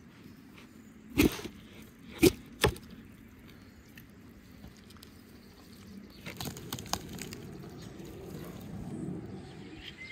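Three sharp knocks on a wooden carving board as roast lamb is cut with a knife, then a crackly tearing as the roasted meat and crisp skin are pulled apart by hand.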